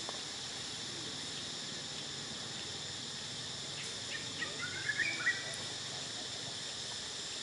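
Steady high insect chorus, with a brief run of high chirps about four to five seconds in.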